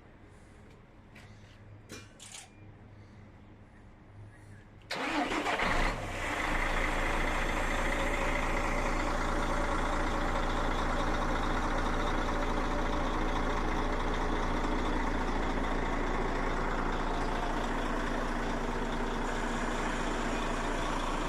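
Truck engine started on a newly fitted battery: a few faint clicks, then about five seconds in the starter cranks briefly, the engine catches and settles into a steady idle.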